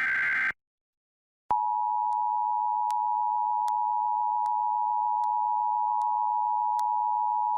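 The last burst of an Emergency Alert System SAME data header, a harsh digital warble, cuts off about half a second in. After a second of silence the EAS two-tone attention signal starts and holds steady and loud, with faint ticks every second or so; together they announce the start of an alert.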